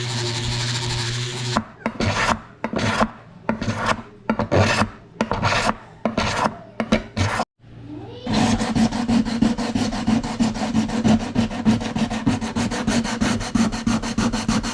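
Hand filing or abrasive rubbing on a workpiece, after a steady hum in the first second or so. It starts as separate strokes about two a second, stops briefly, then goes on as fast, even back-and-forth strokes.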